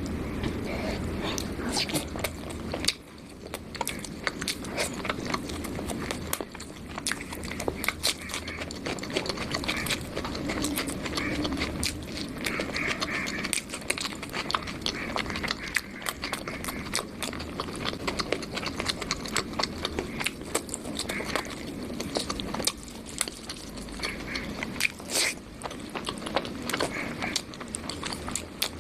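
Close-miked eating: chewing and biting spicy chicken with red rice, with wet mouth smacks and many irregular small clicks throughout.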